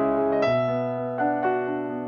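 Slow piano music, a few notes struck and left ringing over a held low note.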